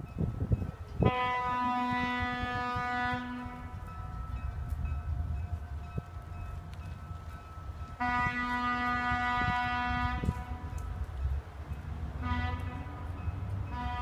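A train horn sounding several notes at once, in two long blasts and a short one, with the next long blast starting near the end, over the low rumble of the moving train. Long, long, short, long is the standard grade-crossing warning pattern.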